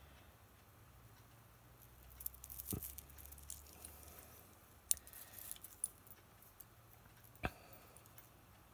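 Faint, scattered ticks and rustles of a metal charm bracelet being handled as a charm is threaded onto its chain, with three sharper clicks spread through.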